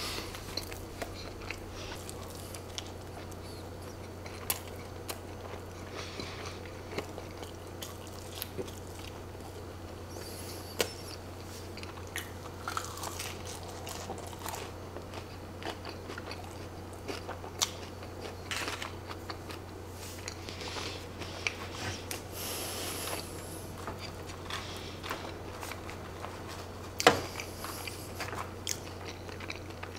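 Close-miked chewing of cheese-sauced fries, mouth sounds with many scattered sharp clicks and taps, some from a plastic fork working the fries, the loudest about 27 seconds in. A steady low hum runs underneath.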